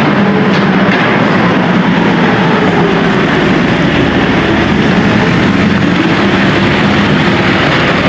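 Tractor engine running steadily, a constant low drone with a dense noise over it and no change in speed.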